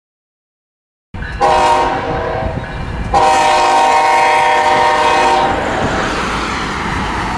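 Diesel locomotive air horn sounding a chord in two blasts, a shorter one starting about a second in and a longer one right after. The locomotive's engine and rolling wheels rumble on once the horn stops.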